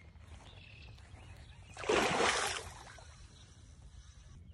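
Water splashing for under a second, about two seconds in, as a hooked northern pike thrashes in the shallows at the bank. Otherwise faint outdoor background noise.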